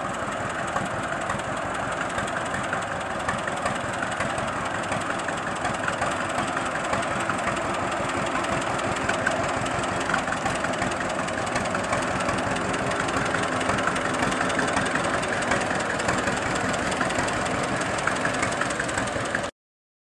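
John Deere two-cylinder tractor engine running with a steady, even pulse as the tractor drives past; the sound cuts off just before the end.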